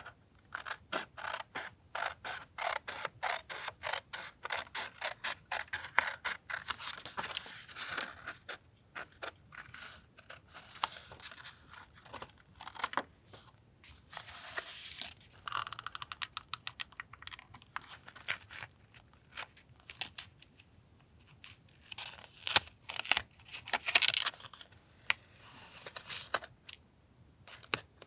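Close-up paper-crafting sounds: a run of quick, evenly spaced clicks lasting several seconds, then scattered clicks and short rustles and scrapes of paper and tape being handled for a journal collage.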